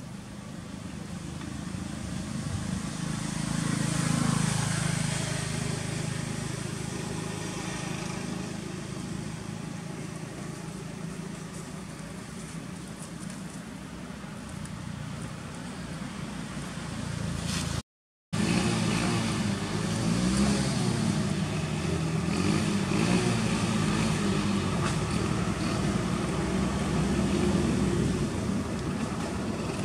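Motor vehicles passing on a road. One swells to a peak about four seconds in and fades, and the engine noise cuts out briefly just past the middle. Afterwards steady engine noise goes on, its pitch rising and falling.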